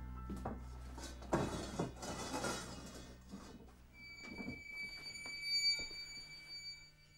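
Thriller film score and sound design: a noisy rushing swell about a second in, then a thin, high sustained tone that sets in about four seconds in and holds.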